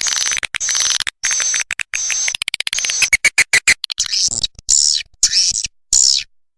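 Swiftlet lure-sound recording: high-pitched swiftlet chirps and rapid clicking trills, in quick bursts with short gaps that grow longer in the second half. It is the kind of call track played in a swiftlet house to draw the birds in to roost and nest.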